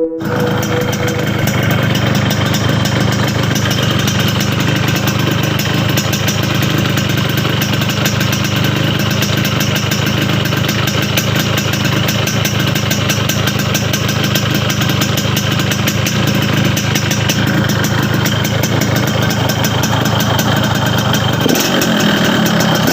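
Yamaha RX-King two-stroke single-cylinder engine running steadily through its opened-up (bobok) exhaust, with a garing ngorok note: crisp and growling. The note shifts near the end.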